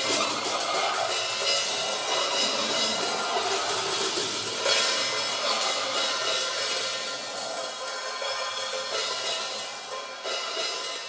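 Drum kit played with sticks: a fast run of cymbal and hi-hat strokes over a continuous cymbal wash, with some drum hits. It gets gradually quieter over the second half.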